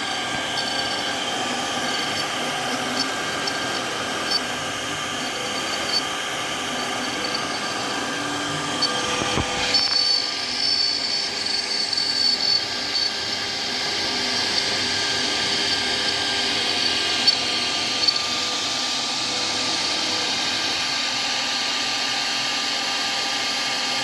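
Air-cooled spindle motor of a CNC router running, a steady high whine made of several tones; the pitch pattern shifts about ten seconds in.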